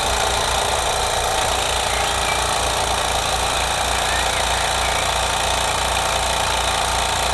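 SteamCo STC01 model steam engine running steadily under steam, a fast even beat over a constant hiss.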